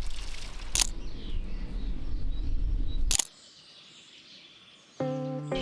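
Two sharp camera shutter clicks, about two seconds apart, over steady outdoor background noise. Then faint birds chirping, and music begins near the end.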